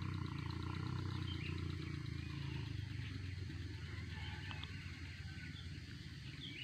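A motorcycle engine running with a low, steady drone that slowly fades, with faint bird chirps above it.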